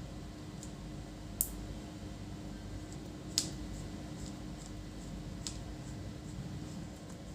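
Sharp clicks and light handling noise from laptop parts being moved and set in place on the bench, with two louder clicks about a second and a half and three and a half seconds in, over a steady low hum.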